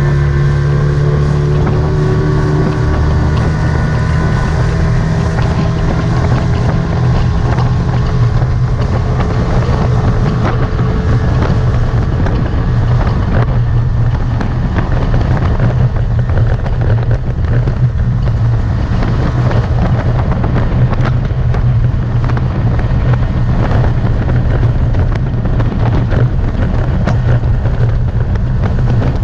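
Outboard motor on a small Carolina Skiff running at speed. Its pitch rises over the first few seconds, then holds steady. Wind buffets the microphone, and water rushes along the hull.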